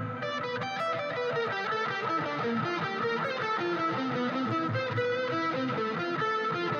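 Guitar music: a steady run of short plucked notes, one after another, with nothing below the low mid-range.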